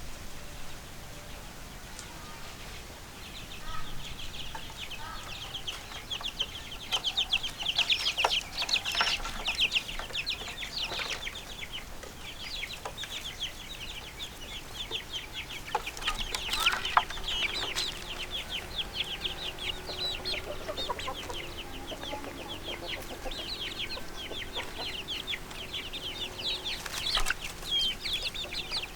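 Chicks peeping without pause, many short high chirps a second, starting about three seconds in, with a few sharp knocks among them.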